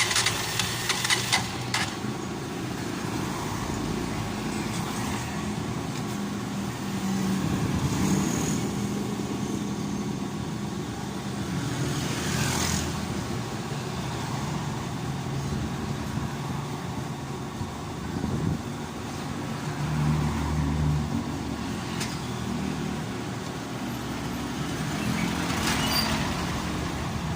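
Motor vehicle engine running, its pitch shifting up and down, with street traffic noise.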